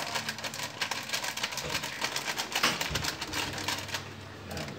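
Rapid, irregular tapping and clicking of a hand-held kitchen utensil working at something in a plastic basin, easing off about four seconds in.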